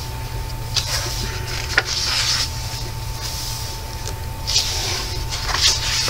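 Pages of a paperback coloring book being turned and smoothed by hand: several short papery swishes and rustles over a steady low hum.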